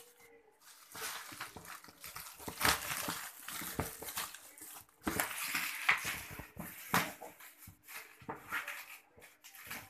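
Clear plastic wrap on a cardboard box crinkling and crackling as it is cut with scissors and pulled away, in an irregular run of crackles and snips.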